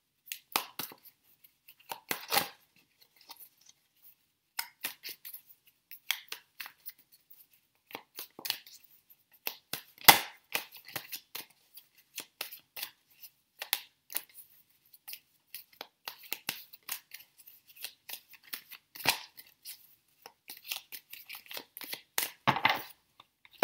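A deck of tarot cards being shuffled between the hands: an irregular run of soft flicks and slaps as the cards slide against each other, with the sharpest snap about ten seconds in.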